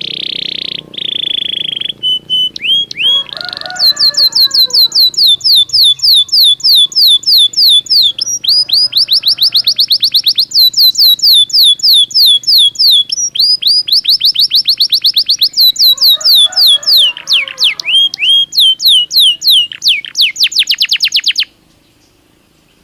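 Belgian canary singing: a held high note for about two seconds, then long runs of rapid falling notes repeated evenly, several a second, with short breaks. The song stops suddenly about a second before the end.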